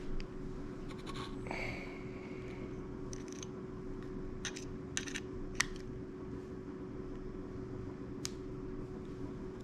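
A bolt being turned by hand into a freshly drilled 9/64-inch hole to cut its own threads: scattered light metallic clicks and ticks from the bolt and hex key, with a short squeaky scrape about a second and a half in. A steady hum runs underneath.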